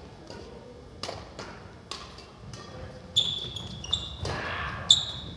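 Badminton rally: sharp racket strikes on the shuttlecock and footfalls, then from about three seconds in several short, high shoe squeaks and a scuff on the wooden court floor as players lunge and turn.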